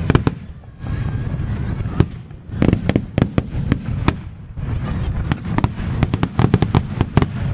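Fireworks display: sharp bangs and crackles over a low booming rumble. The cracks come thick and fast in the second half.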